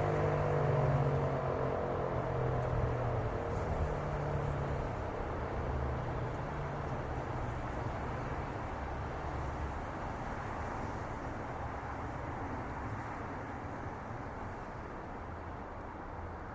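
Sterling 2V8 fire siren winding down after its test: the last low tone of the coasting rotor fades over the first few seconds, leaving a whir that slowly dies away.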